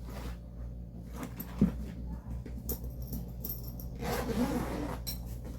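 Handling noise of tools and cases being picked up and set down: scattered clicks and rustling, with one sharp click about a second and a half in, over a steady low hum.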